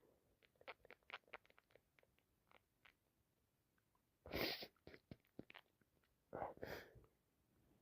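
A person with a heavy head cold between sneezes: faint wet clicks of the nose and mouth, then two short, sharp hitching breaths or sniffs, about four and a half and six and a half seconds in.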